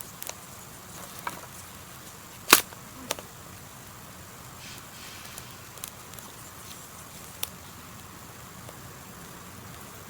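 Small wood campfire crackling, with a handful of sharp pops from the burning wood, the loudest about two and a half seconds in.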